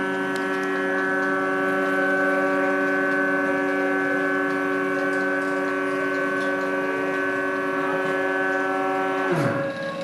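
Filament winding machine's drive motors whining steadily with several tones at once while winding carbon fibre tube in a cross pattern. Near the end the whine drops in pitch and rises again as the carriage slows and reverses at the end of its pass.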